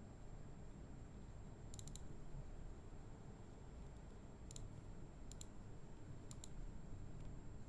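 Faint computer mouse clicks in quick pairs and one triple, coming a few times over several seconds, over a steady low background hum.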